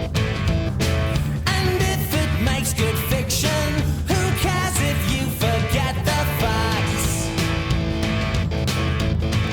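Rock music: electric guitars over bass and drums, with a lead melody wavering in pitch from about one and a half to six and a half seconds in.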